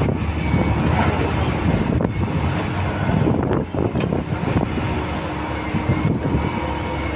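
Caterpillar 330C hydraulic excavator working: its diesel engine runs steadily under load and its hydraulics drive the boom and house swing. A faint steady whine sits over the engine noise.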